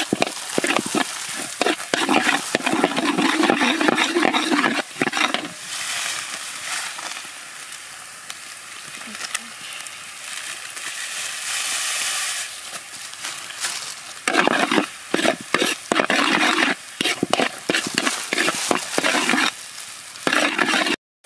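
Metal spatula scraping and stirring chopped garlic frying in oil in a steel wok, over a steady sizzle. Quick scraping strokes fill the first five seconds and come back about two-thirds of the way through. In between, mostly the sizzle is heard.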